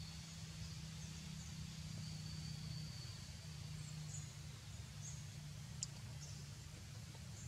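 Faint forest ambience: a steady low hum and a thin, steady high whine, with a few short high chirps in the second half and one sharp tick about six seconds in.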